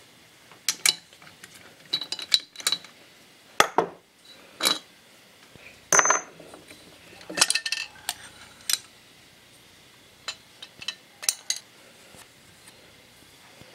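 A series of sharp metallic clinks and knocks as a Briggs & Stratton Intek engine's cylinder head and hand tools are handled and set down, with one brief ringing clink about six seconds in.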